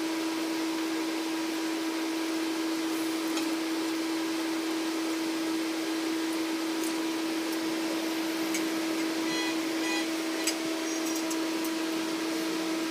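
Steady electric machine hum, like a workshop fan or motor running, with one unchanging tone. A few light clicks come from metal parts being handled.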